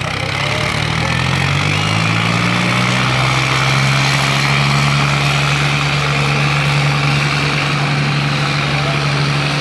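Diesel engines of two tractors, a Ford 3000 and a Mahindra 555, pulling against each other at full load in a tug-of-war. The engine pitch rises over the first three seconds, then holds steady and loud.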